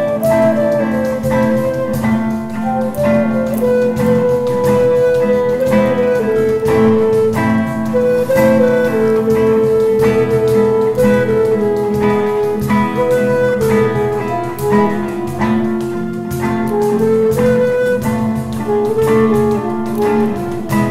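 Instrumental passage: a flute plays the melody over a classical guitar accompaniment, with a cajon keeping a steady beat.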